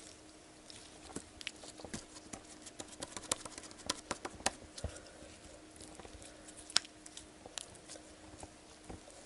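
Sticky homemade Poopsie slime being kneaded and stretched by hand, giving off faint, irregular small wet clicks and crackles as it is worked to take up the magic powder.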